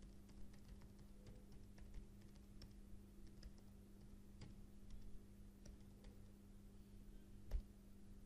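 Faint typing on a computer keyboard: scattered single key clicks, with one louder click near the end, over a steady low hum.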